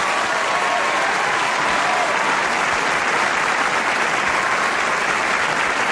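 Studio audience applauding steadily right after a live song ends.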